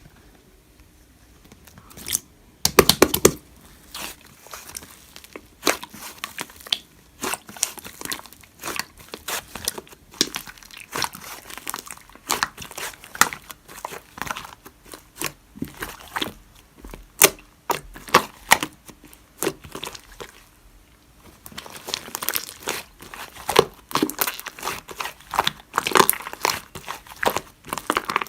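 Slime being kneaded and mixed by hand, giving dense, irregular sticky clicks, pops and crackles. They start about two seconds in and pause briefly about three-quarters of the way through.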